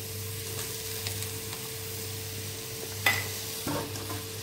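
Soya chunks and vegetables frying in oil and masala in a pressure cooker, a steady low sizzle, with one brief knock about three seconds in.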